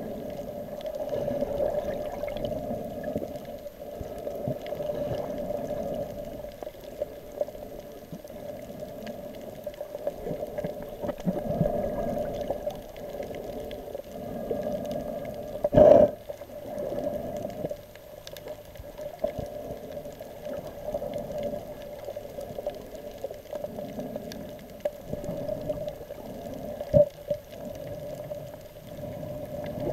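Muffled underwater water noise heard through an action camera's waterproof housing: a steady, murky rushing with a hum-like band in the middle. A sharp knock about halfway through and a smaller one near the end.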